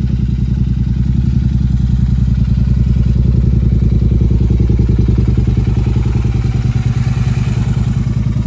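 Royal Enfield Continental GT650's parallel-twin engine running steadily, a loud, even low-pitched pulsing.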